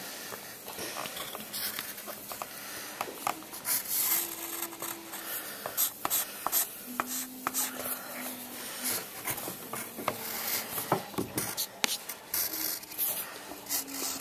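Pencil lead scratching and rubbing across drawing paper in many short, irregular strokes as lines are sketched.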